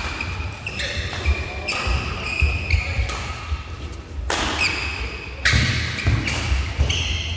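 Badminton rally: sharp racket strikes on the shuttlecock, about five of them with the loudest two near the middle, amid shoes squeaking on the court floor and footfalls.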